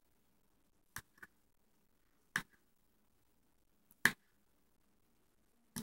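A kitchen knife knocking on a plastic cutting board while slicing by hand: a few sharp single knocks, spaced a second or more apart.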